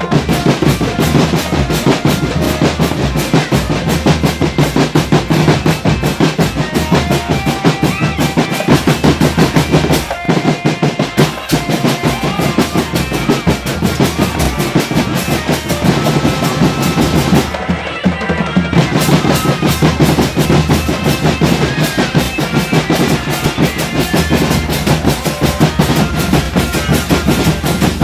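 Drum band playing: marching snare and bass drums beating a fast, dense rhythm with a melody over it. The high drum strokes drop out briefly about two-thirds of the way through.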